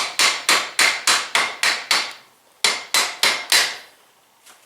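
Repeated hammer blows on the old end cap of an FOA coilover shock, about three a second, a short pause, then four more. The blows drive the internals down below the snap-ring groove during the rebuild.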